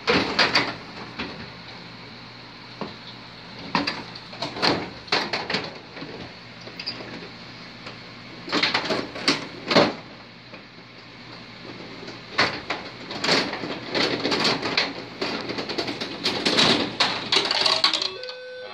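Carrom Superstick dome hockey table in play: bursts of hard plastic clacking and rattling as the control rods are worked and the players hit the puck, in several flurries with short lulls between them.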